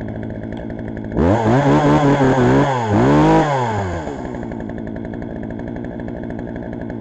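Poulan Wild Thing two-stroke chainsaw idling, revved up twice about a second in, then dropping back to a steady idle. It is running freshly serviced after a new chain and a cleaned air filter.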